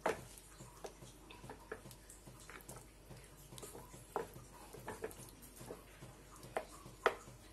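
Wooden spatula stirring a thick spinach-and-chicken curry in a kadhai: faint wet squelching with light, irregular taps of the spatula against the pan.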